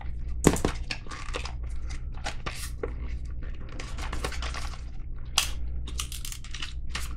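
Packaging being torn and crinkled open by hand in a run of short, irregular rustles, with a sharp click about half a second in.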